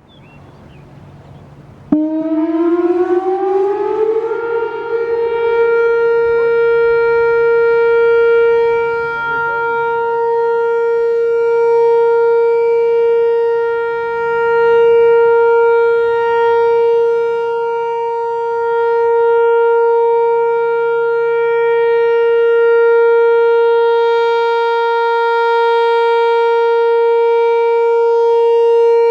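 Whelen Vortex-R4 outdoor warning siren sounding its steady Alert signal during its monthly test. About two seconds in it starts suddenly, rises in pitch for a couple of seconds, then holds one steady tone that swells and fades slowly in loudness.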